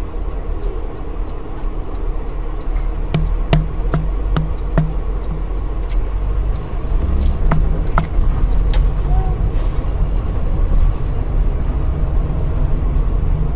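A car driving, with a steady low rumble of engine and road noise. A quick run of five clicks comes about three seconds in, and a few single clicks follow near the middle.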